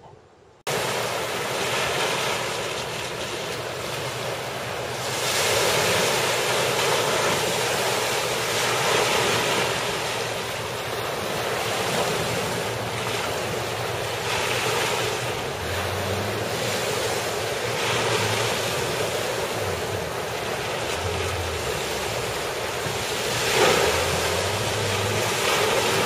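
Wind buffeting the microphone over open water, a loud steady rushing that swells in gusts, with the rush of water from Wanapum Dam's spillway beneath it. It starts abruptly just under a second in, and a low boat-motor hum comes and goes in the second half.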